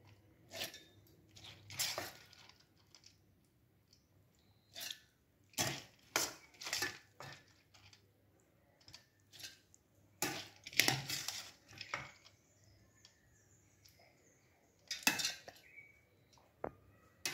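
A steel spoon scooping soaked moong dal out of a steel bowl into a steel mixer-grinder jar: short, irregular scrapes and clinks of metal on metal, about a dozen spread out with pauses between.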